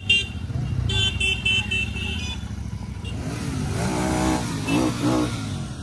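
Several Royal Enfield motorcycle engines running with a low rumble as the group pulls away, with a quick run of short horn beeps in the first couple of seconds.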